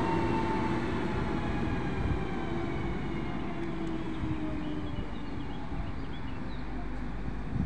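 Koleje Dolnośląskie Newag Impuls multiple-unit train pulling away from the platform. Its motor whine slowly falls in pitch and fades over a low rumble as the train recedes.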